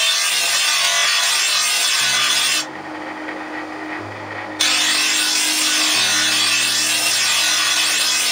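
Bench grinder's abrasive wheel grinding a spring-steel sword blade: a loud, steady hiss of steel on the wheel. The blade comes off the wheel about two and a half seconds in, and the grinding starts again about two seconds later.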